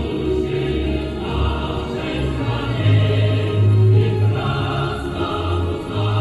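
Choral music: a choir singing, with long, deep bass notes that change every second or so.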